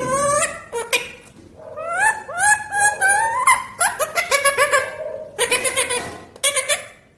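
Talking pet parrot chattering in a run of short calls that rise in pitch, with a few harsher bursts near the end.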